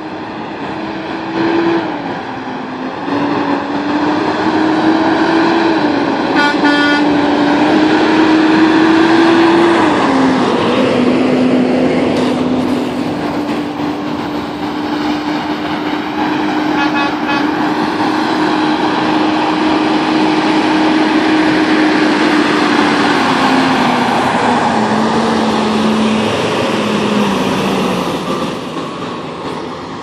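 Semi-truck air horn blowing in long held blasts of one steady pitch, stepping up and down a few times and falling lower near the end, over the noise of the approaching truck.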